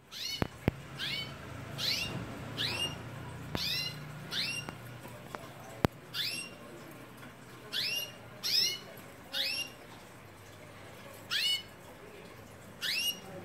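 Spanish timbrado canaries calling from their covered cages: about a dozen short, rising, pitched chirps, one every second or so with a few longer gaps. A few sharp clicks come near the start and about six seconds in.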